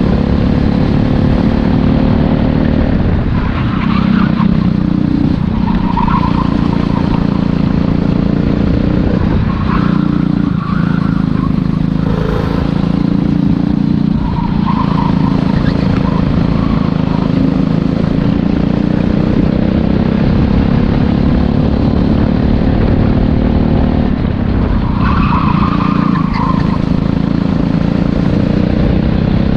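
Racing go-kart engine running at high revs, heard from the driver's seat. The engine note drops off several times as the driver lifts for corners, then climbs steadily again under acceleration, with one long climb on a straight in the second half.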